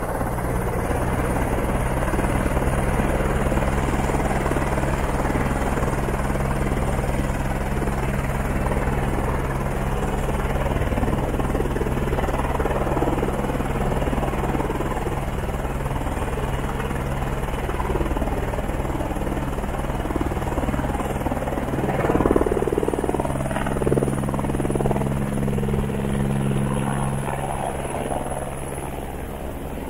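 Airbus AS350 B3 single-turbine helicopter running with its main rotor turning: a steady rotor beat over turbine noise. It gets briefly louder about two-thirds of the way through, then eases slightly near the end as the helicopter lifts off.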